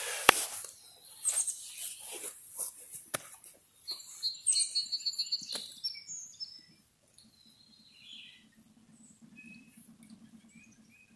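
Birds chirping in quick runs of short high notes, loudest about four to six seconds in, after a sharp click and rustling of handling close to the microphone at the start. A faint low hum comes in near the end.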